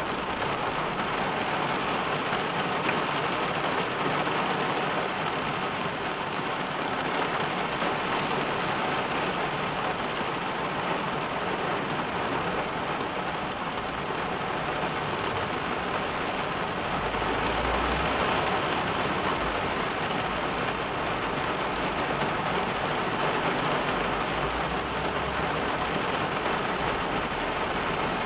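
Rain falling steadily on a car's roof and windscreen, heard from inside the car. A low rumble joins in a little past halfway.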